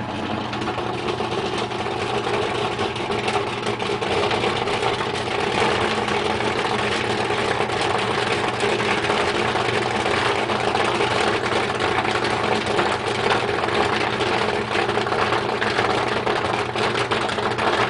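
Cretors Mach 5 popcorn machine kettle popping corn at the height of the cycle: the kernels burst in a dense, continuous crackle that thickens over the first few seconds, over a steady hum from the machine.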